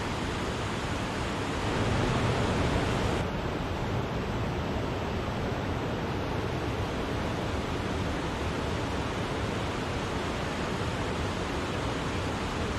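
Steady rushing roar of water pouring down Wachirathan waterfall, swelling a little louder about two seconds in.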